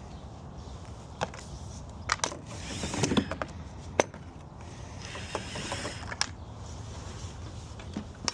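Scraping and scattered knocks and clatters of a tool working inside a dryer vent clogged with bird nest material, pulling the packed nesting out.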